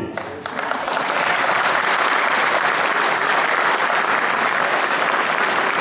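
Many people applauding, the clapping swelling over the first second and then holding steady.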